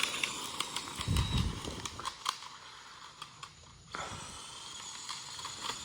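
Radio-controlled cars running on dirt and gravel: a hissing crunch of tyres and loose stones with scattered small clicks, and a dull thump about a second in.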